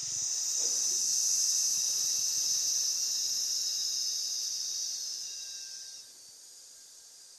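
A man's long, slow exhaled 'ssss' hiss through the teeth: the lung sound of the Six Healing Sounds practice. It starts at once, slowly fades, and stops about six seconds in.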